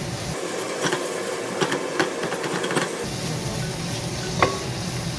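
Onion-tomato masala sizzling in a frying pan while a spoon stirs it, with a few sharp clicks of the spoon against the pan.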